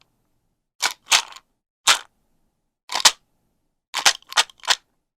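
Sharp click sound effect repeated about nine times at uneven spacing: single clicks, a quick pair about three seconds in, and a fast run of four near the end.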